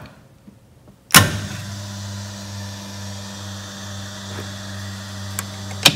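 Electric fuel pumps switching on with a sharp click about a second in, then running with a steady hum, the electrical system powered ahead of cranking. A short click comes near the end.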